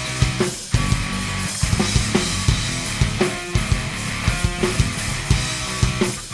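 Background rock music with a driving drum beat and distorted electric guitar.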